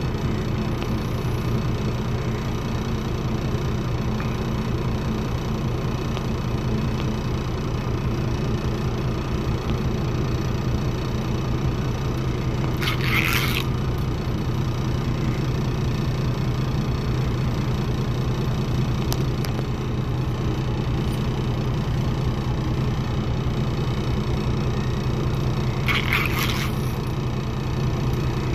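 An engine idling steadily with a low, even hum, most likely the boat's own engine. Two brief rustles come through it, one about halfway through and one near the end.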